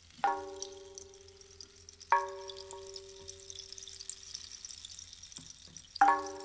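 Three strikes on a ringing metal percussion instrument like a singing bowl or bell, about a quarter second in, at about two seconds and at about six seconds. Each note has a long ringing decay. Under them runs a high, fizzing crackle.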